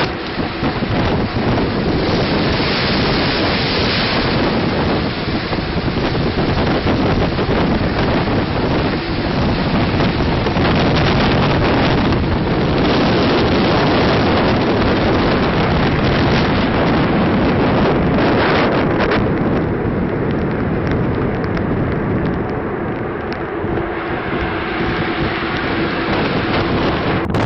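Storm wind buffeting the microphone on a ship's open deck, with heavy seas breaking and seawater rushing across the deck. It runs as a steady, loud rush that eases slightly about twenty seconds in.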